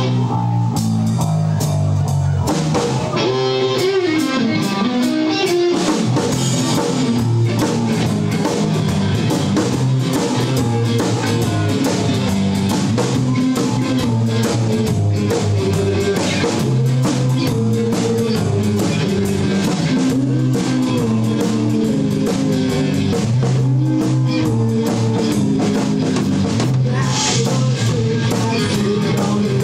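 Live rock band playing an instrumental rockabilly intro: electric guitar lines over a drum kit, with no vocals.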